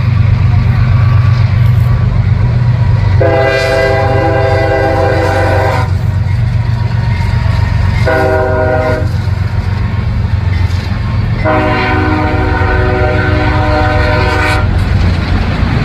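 Freight train passing a level crossing: a steady heavy rumble from the locomotive and cars, with the locomotive's multi-note air horn sounding a long blast, a short one, and another long one.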